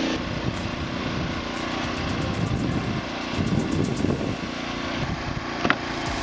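An engine running steadily, with one sharp crack about five and a half seconds in.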